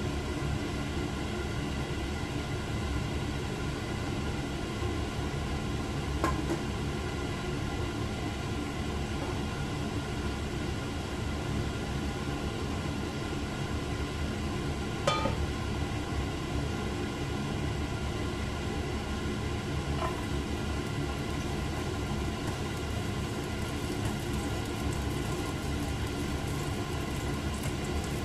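Steady rumbling stovetop hum with several fixed tones that run unchanged throughout, broken by brief sharp clicks about 6, 15 and 20 seconds in.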